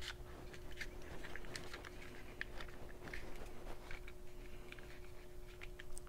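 Faint scattered clicks and light rubbing from a plastic MA Loader magazine loader being handled and turned over in the hands, over a steady faint hum.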